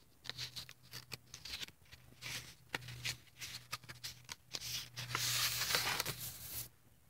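Paper rustling and handling noise from the thick collaged pages of a spiral-bound art journal being handled, with short crackles, then a louder, longer rustle about five seconds in as a page is turned over.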